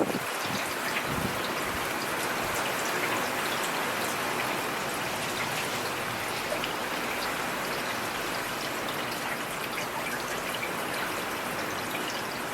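Steady rainfall, with many individual drops ticking sharply close by.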